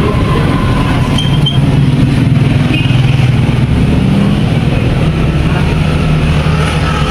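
Engine running steadily with a low, continuous hum.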